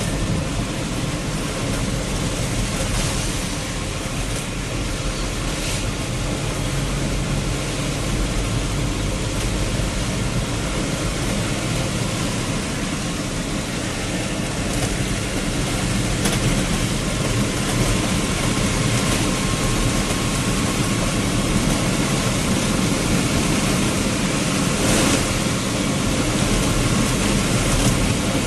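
A vehicle's engine running steadily under a dense wash of rain and road noise while riding through heavy rainfall, with a few brief faint ticks.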